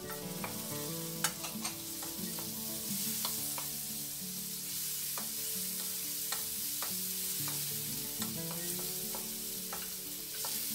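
Chopped onion, garlic and ginger sizzling in butter in a metal wok, stirred with a spatula that clicks and scrapes irregularly against the pan.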